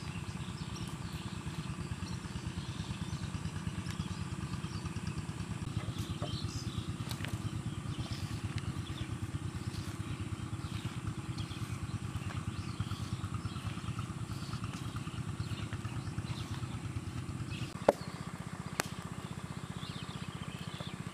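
A steady low engine drone with a fast even pulse, with faint high chirps above it; two sharp knocks about a second apart near the end.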